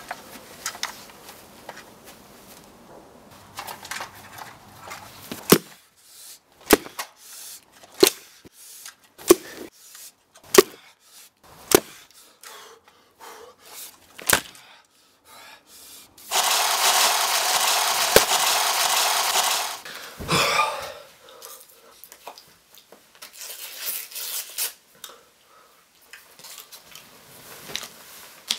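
Scattered sharp knocks and clicks, then a loud steady whir for about three and a half seconds, and a shorter one a few seconds later: the hedge-trimmer motor driving the chain on a homemade chainsaw cricket bat.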